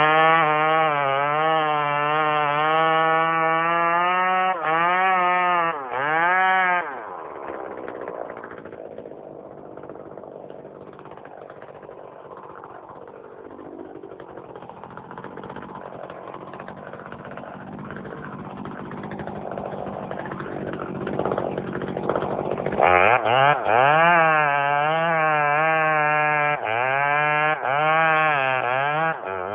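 Blackmax 38cc two-stroke gas chainsaw running at high revs, its pitch wavering, with the throttle dropping off briefly several times. For a long stretch in the middle the engine note gives way to a quieter, even noise, and then the saw is back at full throttle near the end.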